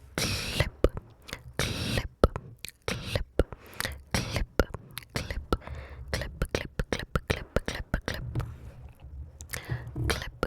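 Close-miked ASMR mouth sounds: a rapid, irregular run of wet tongue and lip clicks and smacks, with a few short breathy whispered hisses at the start and again near the end.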